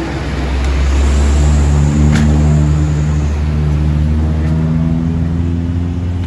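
Honda Tiger motorcycle's single-cylinder four-stroke engine running after its service. It is revved up a little about a second in and then held at a steady speed.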